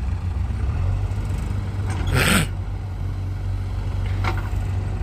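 Farm tractor engines running with a steady low drone as a tractor with a loaded trolley moves past. A brief loud noisy burst cuts in about two seconds in.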